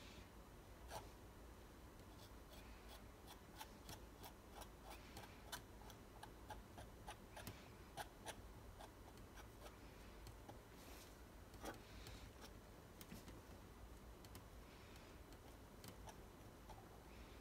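Faint, irregular light clicks and soft scraping of a metal palette knife dabbing and spreading thick black acrylic paint on a stretched canvas.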